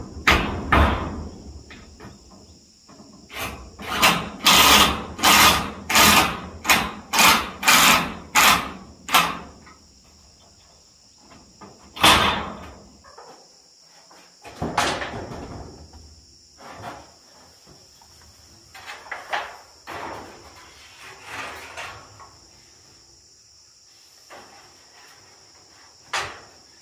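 Roof work on corrugated metal roofing sheets: a run of about ten sharp knocks, roughly two a second, then scattered knocks and rattles as a long sheet is passed up onto the roof. Insects trill steadily underneath.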